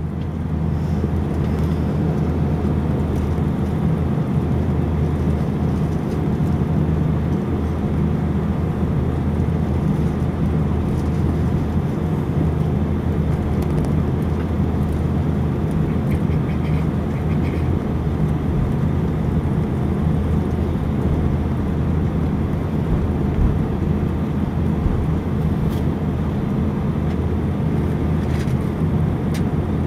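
Airbus A319's jet engines heard from inside the cabin, a steady hum at low taxi power as the airliner taxis out to the runway before its take-off.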